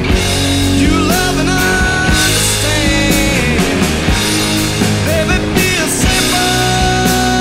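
Rock music with a steady drum beat and long held lead notes that bend in pitch.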